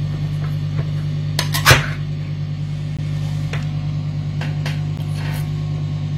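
Ring-pull lid of a tin can being opened by hand: a sharp crack as the seal breaks about a second and a half in, then several small clicks and scrapes as the metal lid is peeled back. A steady low hum runs underneath.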